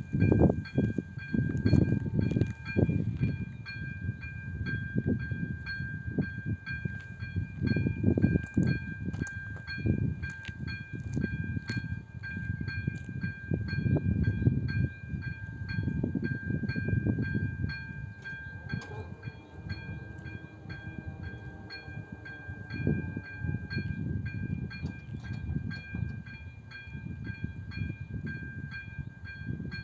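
Level-crossing warning bell of an AŽD 97 crossing ringing in an even, repeating rhythm, with gusty wind rumbling on the microphone. About two-thirds of the way in, the barrier drives whine briefly as the booms lower.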